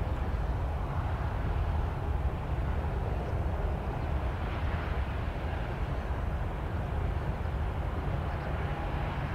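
Rolls-Royce Trent 1000 jet engines of a Boeing 787-9 airliner running as it rolls along the runway: a steady rushing noise over a deep rumble.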